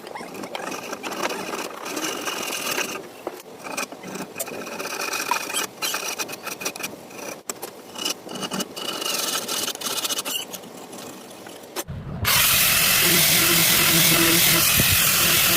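Woodworking clatter of irregular knocks and clicks. About twelve seconds in, a power tool starts abruptly and runs loudly and steadily for about three and a half seconds.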